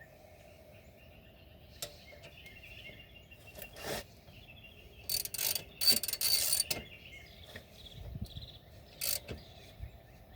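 Socket ratchet clicking in short runs, loudest about five to seven seconds in, with a few separate metal knocks, as the oil drain plug is screwed back in and tightened on a small engine after draining.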